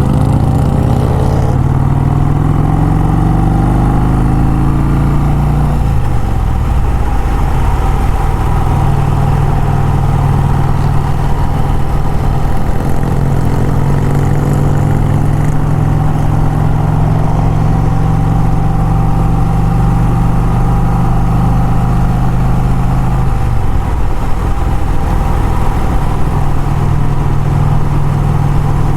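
Motorcycle engine under way on the road, heard close from the moving bike. Its note climbs as it accelerates in the first few seconds, drops around six seconds in, climbs again a little before halfway, then holds steady before changing again near the end.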